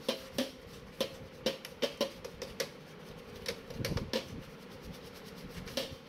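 Brush scrubbing the RAM slots of a Dell OptiPlex 9020 motherboard to clear dust: irregular light clicks and scratches, a few each second.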